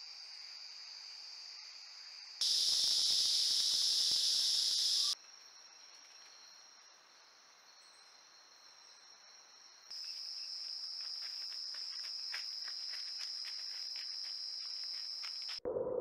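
Nocturnal rainforest insect chorus: steady high-pitched trilling that changes abruptly in loudness and pitch several times, much louder for a few seconds starting about two and a half seconds in.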